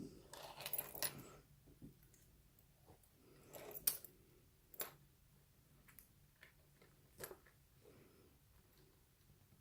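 Small metal lock parts and tools clinking and rattling as they are handled, with a jangle in the first second, another about four seconds in, and a few light sharp clicks after.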